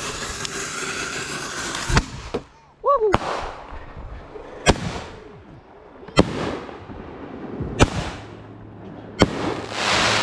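Aerial fireworks going off: a hissing spray for the first two seconds, then sharp bangs about every second and a half, each with a short ringing tail. A short whistle rises and falls about three seconds in, and a loud hissing burst comes near the end.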